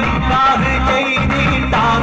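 A man singing a song through a microphone, his voice wavering in pitch over instrumental backing music.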